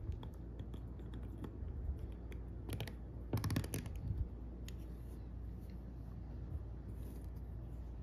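Tiny plastic building bricks (Daiso Petit Block) clicking and snapping together under the fingers. A cluster of louder clicks comes about three to four seconds in, as a section is pressed firmly into place.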